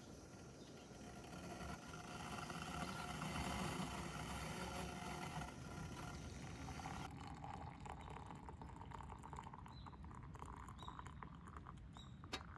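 A steady rushing noise for about seven seconds that cuts off suddenly, followed by quieter ambience with small scattered clicks and a few short high chirps.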